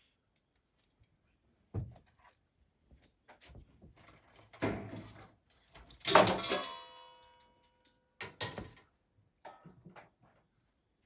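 A few separate knocks and thuds. The loudest, about six seconds in, rings briefly like struck metal.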